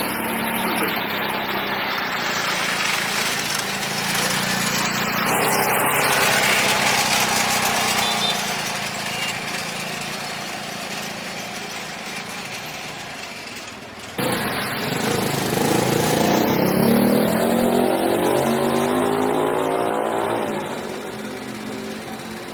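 A small engine running, with a sudden break about 14 seconds in, after which its pitch rises and falls as it revs.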